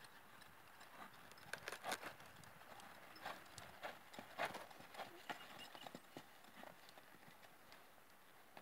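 Faint hoofbeats of an American Quarter Horse cantering on sand: a run of irregular soft thuds that thins out near the end.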